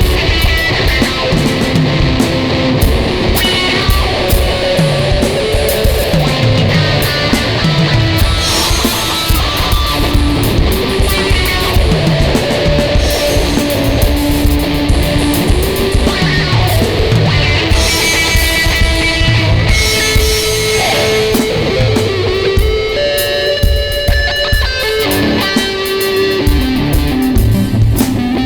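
An Ibanez electric guitar playing a riff over drums in a loud, steady heavy-rock instrumental jam.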